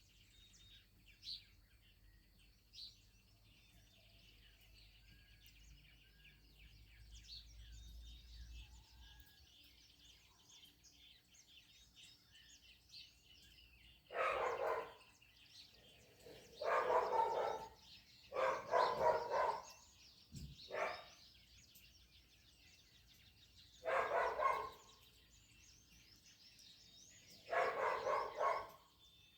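Faint birdsong in the background, then from about halfway a dog barking in short bouts, about six of them, a few seconds apart.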